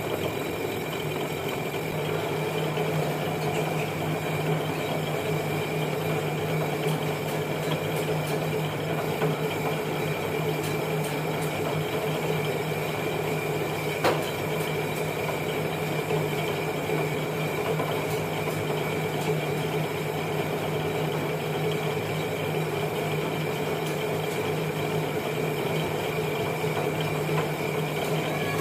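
Metal lathe running steadily with a car brake disc rotor spinning in its chuck, a constant hum with a high whine over it, as the rotor's rear face is skimmed smooth. One sharp click about halfway through.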